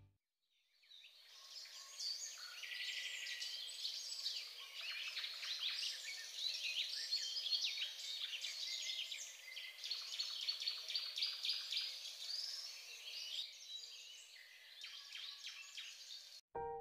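A chorus of many birds chirping and calling at once, with short high-pitched notes overlapping thickly. It fades in about a second in and cuts off suddenly just before the end.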